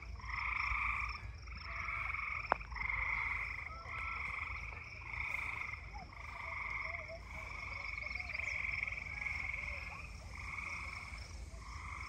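Frogs singing in chorus: a string of short trilled calls, each about a second long, following one another with barely a pause.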